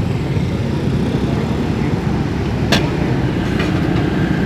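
Steady low rumble of road traffic passing close by, with a single sharp metallic clink a little before three seconds in.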